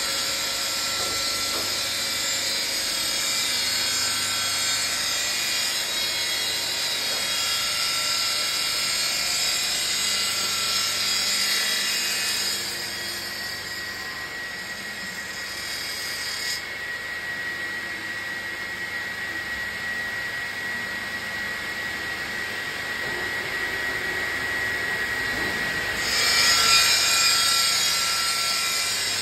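Granite curbstone chamfering and grinding machine running, its row of grinding heads working the edge of a granite block: a steady grinding hiss with a high whine in it. The hiss falls away about halfway through and swells again near the end.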